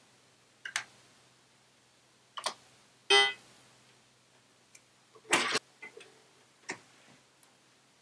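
A few sharp clicks of keys being pressed, then about three seconds in the Apple IIgs startup beep, a short bright tone that fades quickly as the machine resets. A louder clatter and a few more clicks follow about two seconds later.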